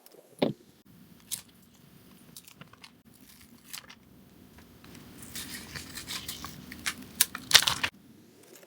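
Paper and craft materials being handled at close range: a couple of sharp clicks, then a rasping, crinkling stretch that grows louder and stops suddenly near the end.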